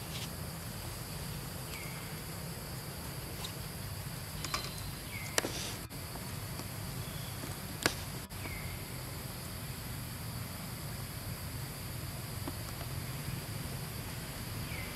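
Steady drone of insects, with a short falling call recurring every few seconds and two sharp clicks near the middle.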